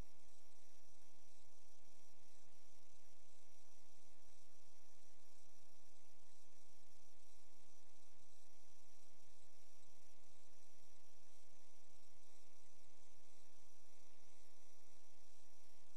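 Steady electrical hum, a stack of even tones over constant hiss, picked up by a drain inspection camera's recorder.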